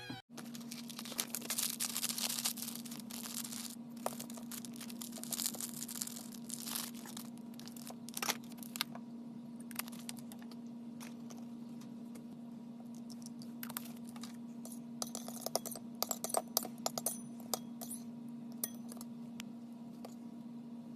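Slime being squeezed and poked by hand, giving bursts of sharp crackling and popping clicks over a steady low hum.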